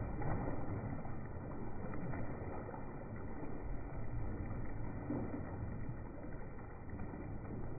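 Water in a fish tank, splashing and pouring, slowed down so it comes out as a steady, deep, muffled rumble.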